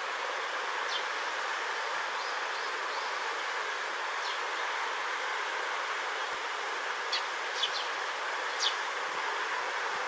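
Eurasian tree sparrows giving short, high chirps, a few scattered at first and then several close together in the second half, over a steady background hiss.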